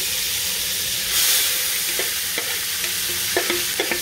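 Chopped onion, scallion and peppers sizzling as they are scraped from a bowl into hot frying oil and chicken drippings in a pot. The sizzle surges about a second in, as the seasoning lands, and a few light taps and scrapes follow.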